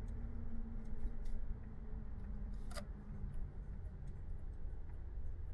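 Low, steady engine and road rumble heard inside a moving van, with a few faint clicks.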